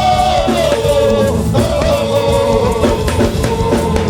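Church worship music: a held, gliding singing line over a steady drum beat.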